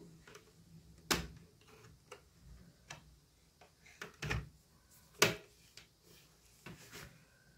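Plastic clips of a laptop's screen bezel snapping into the lid as the bezel is pressed home: a series of sharp clicks, the loudest about a second in and about five seconds in.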